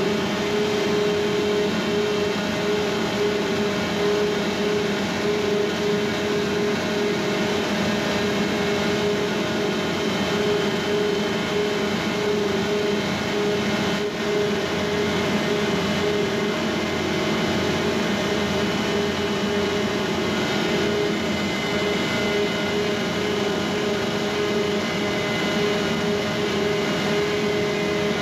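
Heavy fuel oil purifier, a centrifugal separator, running alongside engine-room machinery: a steady, unbroken hum with a few constant tones.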